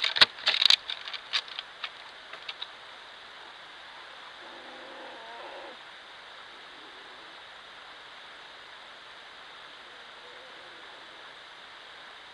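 Sharp clicks and rustling knocks close to a trail camera for the first two and a half seconds, then the camera's steady hiss. About four and a half seconds in, a faint short animal call lasts just over a second.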